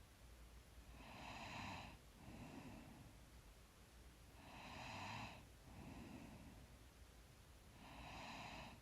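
A person breathing slowly and evenly in sleep: faint, regular breaths, one every three to four seconds, each a louder breath followed by a softer one.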